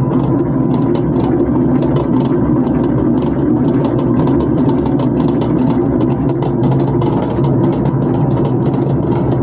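Commercial stand dough mixer running steadily as it mixes pizza dough in its steel bowl: a constant motor hum with frequent light clicks and rattles.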